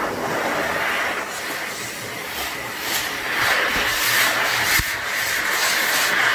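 High-velocity dog dryer (water blaster) blowing a steady rush of air, blasting water out of a dog's wet leg and paw fur. It gets louder about three seconds in as the nozzle is brought close to the fur, with an uneven hiss as the air stream moves over it.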